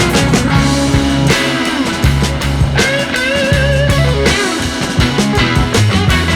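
Rock music with guitar, a steady bass line and drums.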